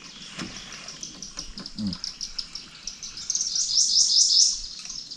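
A songbird singing: a quick run of high chirping notes that swells into a louder phrase of about five rapid notes a little after three seconds in.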